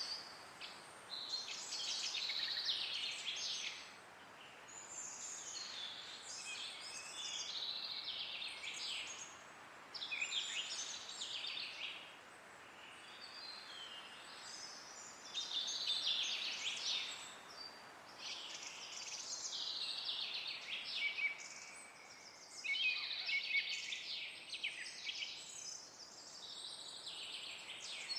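Woodland birds chirping and calling almost without pause, several voices overlapping, over a faint steady hiss.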